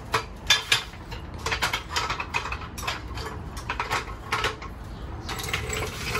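A run of irregular light clicks and clinks, several a second, from something small and hard being handled.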